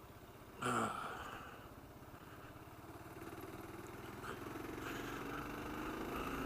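Kawasaki KLR 650's single-cylinder engine running on the road, with a short louder burst about half a second in, then the engine note slowly rising as the bike gathers speed.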